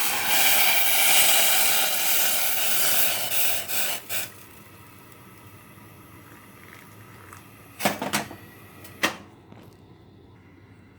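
Just-boiled water poured onto instant noodles in a bowl, a loud steady hiss that stops about four seconds in. Two sharp knocks follow near the end.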